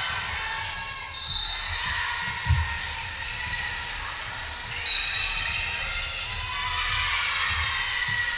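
Volleyball rally: dull thumps of the ball being passed and hit, the loudest about two and a half seconds in, among players' calls and chatter echoing in a gymnasium.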